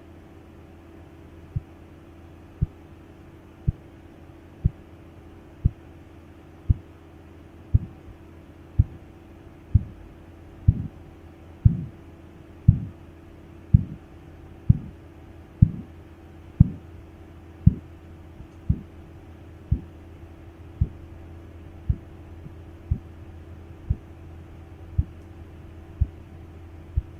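Korotkoff sounds, the tapping of blood through the brachial artery under a deflating blood pressure cuff: sharp taps about once a second, starting about a second and a half in, growing louder to a peak about halfway, then fading gradually, over a steady low hum. The first tap marks the systolic pressure.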